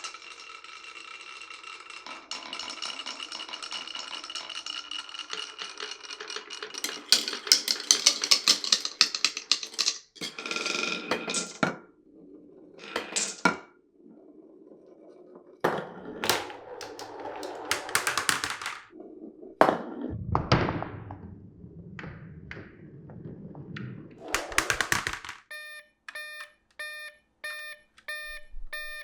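Marbles rolling and clattering through a wooden marble run of blocks, rails and pipes: a steady ringing roll at first, then clusters of sharp clacks and knocks as they drop between pieces. About three and a half seconds before the end, a toy railroad crossing signal starts a steady, evenly repeating ding.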